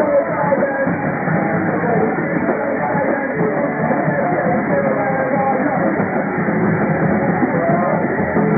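Rock band playing live: drums and electric guitars, loud and continuous.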